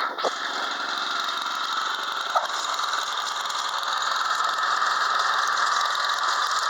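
Honda HS80 snowblower running steadily with its auger engaged, working properly. A single short knock about two and a half seconds in.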